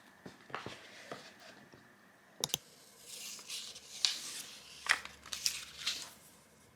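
A wrapper being torn open and crinkled: a few light clicks, two sharp snaps about two and a half seconds in, then several seconds of crinkling and tearing.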